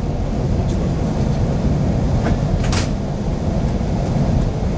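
Electric passenger train running, heard from inside the carriage: a steady low rumble of wheels on the rails, with a couple of short clicks a little past halfway through.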